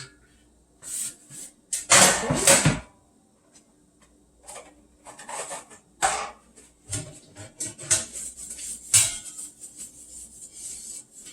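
Kitchen handling sounds: a loud clatter about two seconds in, then scattered knocks, rubs and clicks as a baking pan and utensils are handled, over a faint steady hum.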